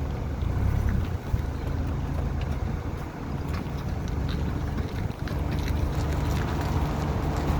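Car running at low speed with a steady low engine hum and faint intermittent ticks, as the front wheels make a noise when steered through a turn.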